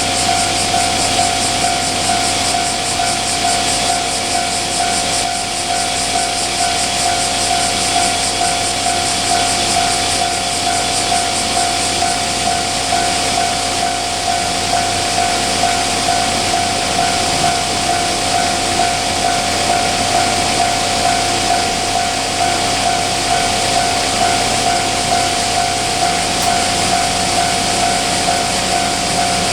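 Japanese level-crossing warning bell ringing its steady, repeating 'kan-kan' alarm, over a steady hiss.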